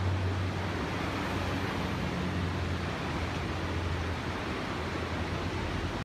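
Steady wash of surf from waves breaking on a sandy beach, with a low steady hum underneath.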